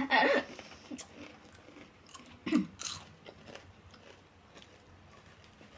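A person biting and chewing crunchy street food close to the microphone, with a few sharp crunches in the first three seconds, then quieter chewing.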